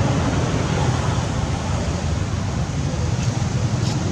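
Steady low rumbling outdoor background noise with no distinct events, and a couple of faint clicks about three seconds in.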